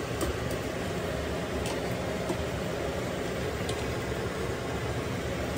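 Steady rushing noise at a gas stove while fried fryums are scooped from a kadai with a wire-mesh skimmer, with a few light clicks of the metal skimmer against the pan.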